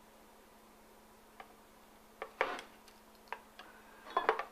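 Light clicks and taps of a thin gold wire eyeglass frame being handled against a wooden board. A few single ticks come about a second apart, then a quick, loudest cluster near the end.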